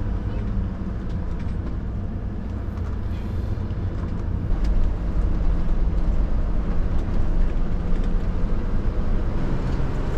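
Steady engine and road rumble inside the cab of a gas-engine Class A motorhome under way, its engine housing lined with sound-deadening mat. It grows louder about four and a half seconds in.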